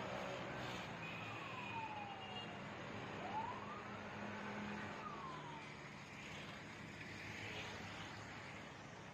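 A distant siren wailing, its pitch sliding down, then up, then down again, over a steady background hum.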